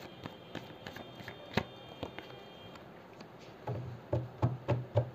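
A deck of tarot cards being shuffled by hand: a run of soft, quick card clicks with a sharper one about a second and a half in, growing louder with lower bumps near the end.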